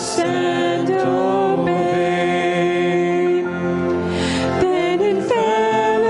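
Small mixed vocal group singing a hymn in harmony through microphones, holding long sustained chords that change every second or two.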